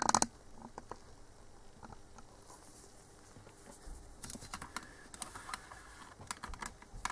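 Faint, irregular light clicks and tapping from handling small hard objects, coming thickest from about four seconds in.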